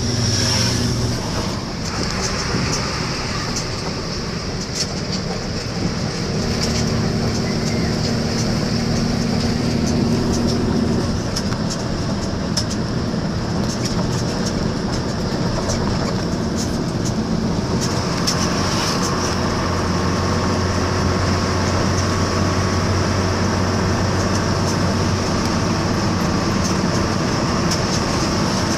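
A motor vehicle driving on a paved road, heard from inside: steady engine and road noise with light rattling. The engine note changes about a third of the way in and again a little past halfway.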